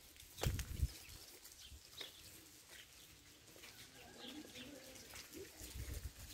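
Faint village outdoor ambience with small birds chirping now and then, and a couple of low, muffled thumps about half a second in.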